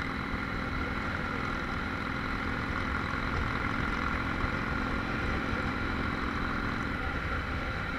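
Harley-Davidson Street 500's V-twin engine running at a steady cruise, heard from a helmet chin-mounted camera. The engine note holds even, with no throttle changes.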